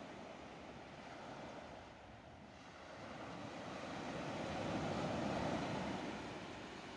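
A rushing, wind-like wash of noise from the ambient soundtrack, which swells to its loudest about five seconds in and then fades.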